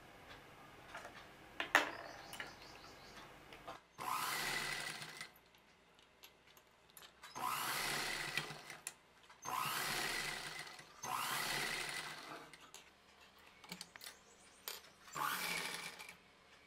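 Sewing machine stitching fabric in five short runs of one to two seconds each, starting about four seconds in, with pauses between as the cloth is turned along a curved seam.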